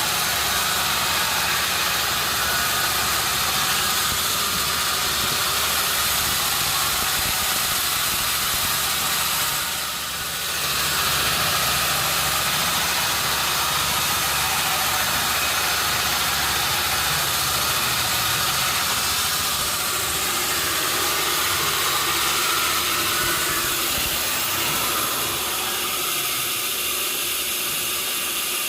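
Sawmill machinery running: a steady engine drone under a dense, even hiss, dipping briefly about ten seconds in and settling a little quieter near the end.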